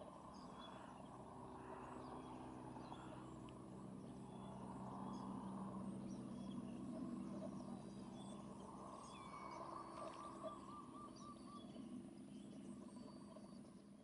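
Faint outdoor ambience of birds chirping and calling, with a short looping, warbling call about ten seconds in, over a steady low hum.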